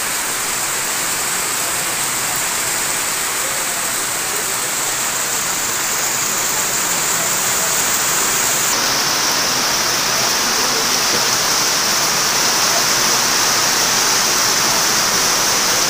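Steady rain falling, a continuous hiss that drops a little in pitch about nine seconds in.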